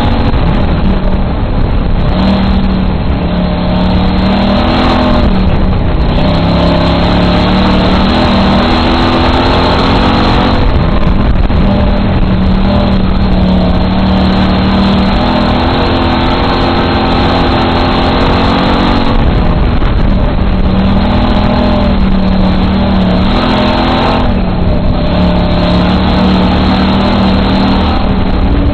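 Dirt-track race car's engine heard from inside the car, loud and steady, its pitch dropping and climbing again several times as it laps the track.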